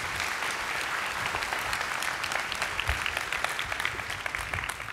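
Large audience applauding: a dense patter of many hands clapping that thins out near the end.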